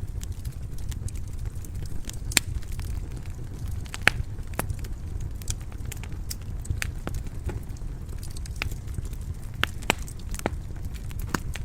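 Wood fire burning in a stone fireplace: a steady low rumble of the flames with sharp, irregular crackles and pops, about a dozen in the stretch.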